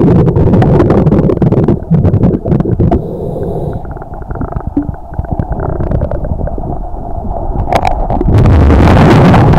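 Muffled underwater rumble and sloshing from a submerged camera's microphone as the camera is moved through the water along a boat hull, with scattered clicks and knocks against the housing. It eases off in the middle and is loud again near the end.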